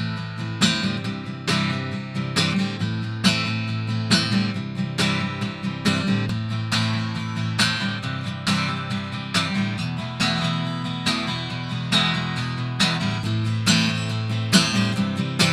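Acoustic guitar strumming chords in a steady rhythm, close-miked with a Telefunken M82 dynamic microphone. The mic's tone switch goes from neutral to kick EQ and then to high boost partway through.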